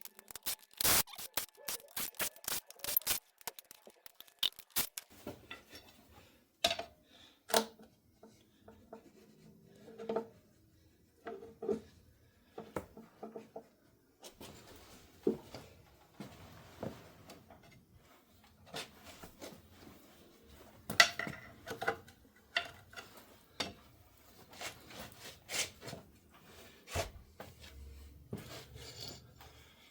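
Hand tools and bolts being worked off the front of an engine: a run of fast metallic clicks in the first few seconds, then scattered clinks and scrapes of metal parts being handled.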